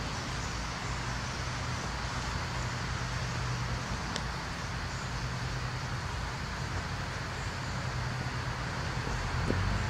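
Steady low rumble of distant road traffic, with a faint click about four seconds in.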